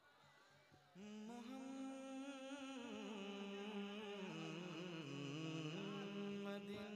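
A man's voice singing a slow, drawn-out naat or durood line with no instrument, starting about a second in; long held notes slide slowly up and down in pitch.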